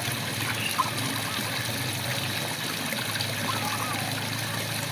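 Steady rain falling, with frogs giving short warbling calls a couple of times over it.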